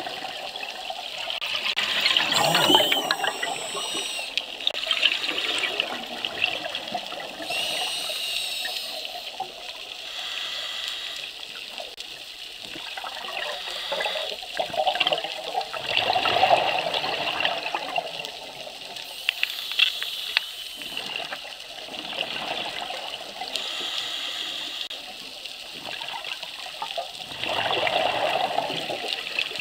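Underwater scuba breathing: exhaled air bubbling and gurgling out of a diver's regulator in bursts every five or six seconds, between breaths.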